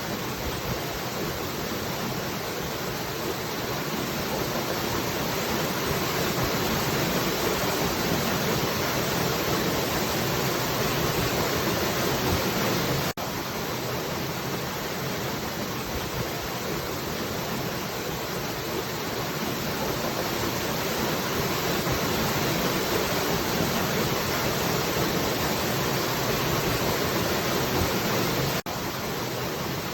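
Steady rush of falling water. The rush breaks for an instant twice, about 13 seconds in and near the end.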